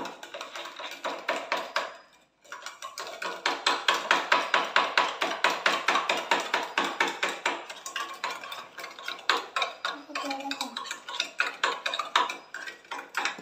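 Metal spoon stirring liquid in a steel tumbler, clinking rapidly against its sides several times a second, with a brief pause about two seconds in.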